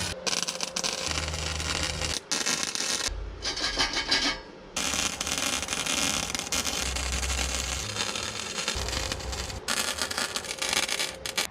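Arc welding on a steel frame: several welds, each starting and stopping abruptly, with short breaks between them.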